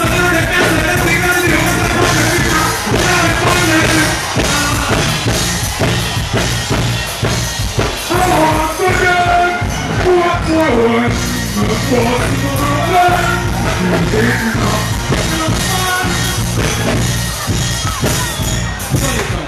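Live dancehall music over a concert sound system: a male vocalist singing into a microphone over a backing riddim with a steady beat.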